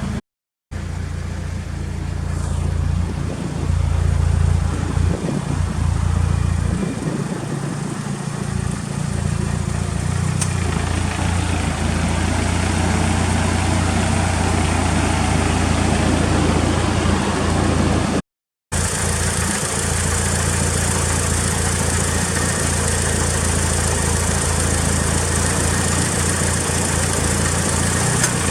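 Mitsubishi Lancer Evolution VI's turbocharged four-cylinder engine idling steadily through an aftermarket muffler, with a low, even exhaust note. The sound drops out twice, briefly.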